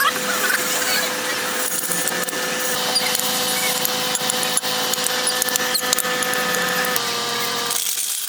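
Electric power tool sanding a drum brake: a steady motor whine over gritty scraping noise, its pitch shifting slightly about seven seconds in.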